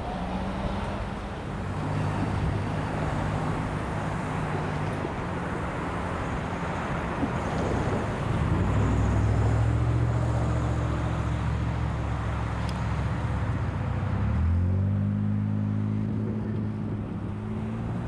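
Diesel engine of an EJ&E SD38-3 road-switcher locomotive running at low throttle. About halfway through a deeper, louder drone comes in, and a few seconds before the end the engine note rises as it is throttled up. A light wind noise on the microphone runs underneath.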